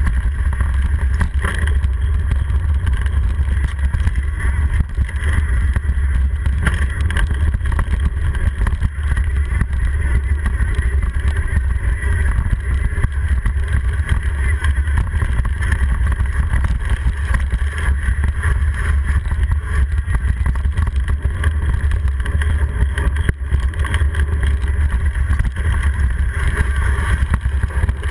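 Steady low wind rumble on a handlebar-mounted GoPro's microphone as a mountain bike rolls down a dirt trail, with the bike's rattle and a few faint knocks over the ground.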